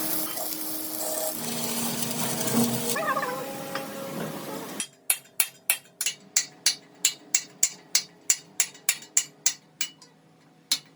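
Rapid, evenly spaced hammer strikes on metal, about four a second, in a run of about five seconds starting halfway through. Before that, mixed workshop background sounds with a few steady tones.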